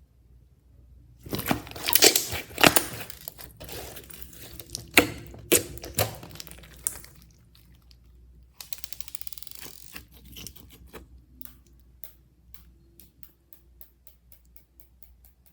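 Slime being mixed and worked by hand, making sticky crackling and tearing sounds. It starts about a second in, is loudest over the next few seconds, and ends in a run of small quick pops.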